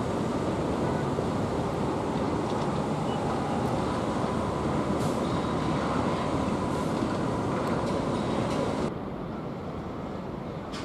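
Changsha Maglev Express train running along its elevated guideway, heard from far off as a steady rushing noise with a faint high whine. The sound drops suddenly about nine seconds in.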